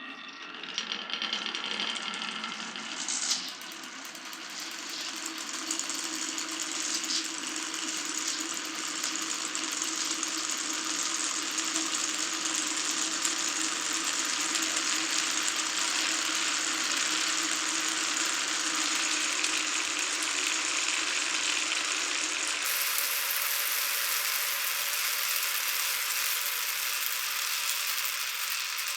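Glass marbles rolling and clattering along wooden marble-run tracks in a steady, continuous rattle. The sound changes character suddenly about 22 seconds in.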